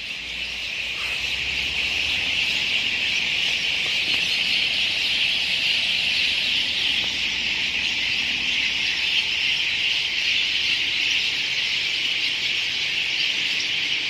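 Dense chorus of a large flock of roosting birds in trees, many voices chattering and calling at once into a steady, shrill din.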